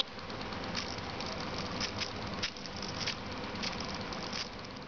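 Small electric motor of a homemade RC boat spinning an ice-cream-stick propeller in the air, a buzzing whir with short, irregular rises in pitch as the speed is changed, dying away near the end.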